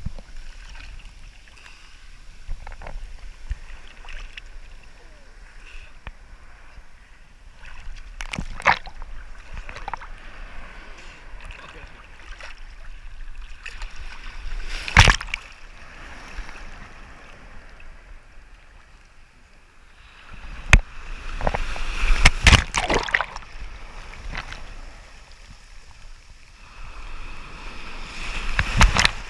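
Shallow surf washing around a camera at the waterline, with sudden loud splashes every few seconds as waves break over it and water is churned up, the loudest about halfway through and again in a cluster about two-thirds of the way in.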